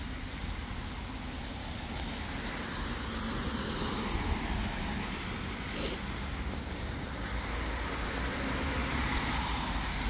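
Cars passing on a wet road, their tyres hissing on the wet surface; the hiss swells about four seconds in and again near the end.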